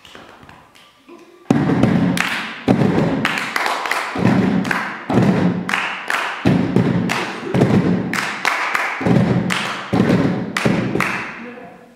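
Hand percussion on plastic storage boxes mixed with hand claps: a fast rhythmic run of hollow thuds and sharp slaps in repeating phrases, starting about a second and a half in.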